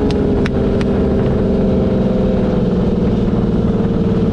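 Sand car's engine running at a steady pitch, heard from inside the open cockpit, with a few sharp clicks in the first second.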